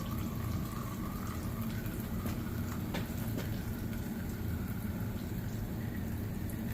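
Engine oil trickling and dripping from loosened remote oil filters into a drain pan, over a steady low hum, with a few faint clicks.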